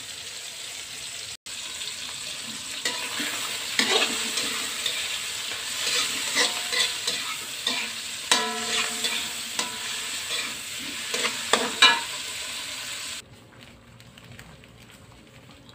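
Red chilies, shallots, garlic and tomato frying in hot oil in a steel wok with a steady sizzle, a metal spatula scraping and clacking against the wok as they are stirred. About two seconds before the end the sizzling stops abruptly, leaving only faint small sounds.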